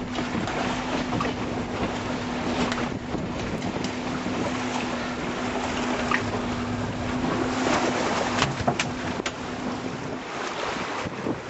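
Boat engine humming steadily under wind noise on the microphone, the hum fading out about nine seconds in. A few sharp knocks sound shortly before it fades.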